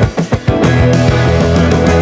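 Background rock music with electric guitar, briefly breaking off about a quarter of a second in before carrying on.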